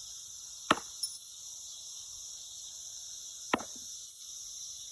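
Steady high-pitched drone of a cicada chorus, with two sharp clacks of thrown metal washers landing, about a second in and again about three and a half seconds in.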